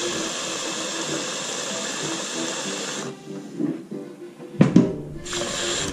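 Kitchen mixer tap running into a large stainless steel pot of soup, shut off about three seconds in. A loud clunk of the pot follows near the end, over quiet background music.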